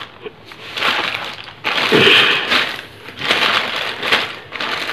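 Plastic courier mailer bag crinkling and rustling as hands grip and pull at it, in several uneven bursts, the loudest about two seconds in.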